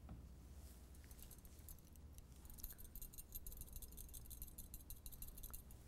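Glass test tube rattling in a metal test-tube holder as it is shaken to dissolve the iodide salt: faint, fast, high-pitched clinking from about halfway through.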